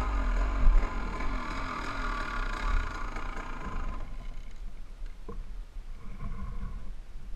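Two-stroke KTM enduro motorcycle engine running at low revs with a wavering pitch as the bike rolls to a stop, then switched off about halfway through. Afterwards there is a low wind rumble on the helmet microphone and a single faint click.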